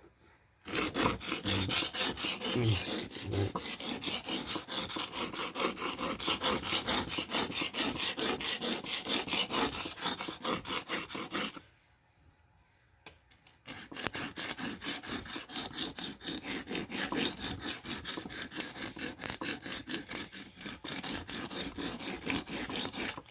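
Steel knife blade being stroked quickly back and forth across the coarse side of a cheap whetstone, a steady rasping scrape, with a pause of about two seconds near the middle.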